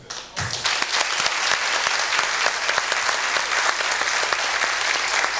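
Studio audience applauding steadily, starting about half a second in.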